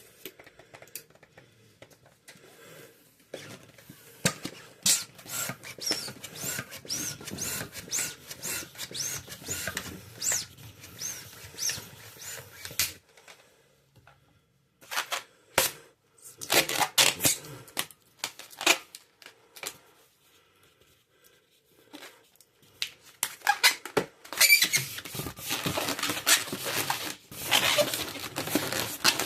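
Latex modelling balloons squeaking and rubbing as they are handled and twisted, with sharp clicks and crackles, in several bursts with short pauses between.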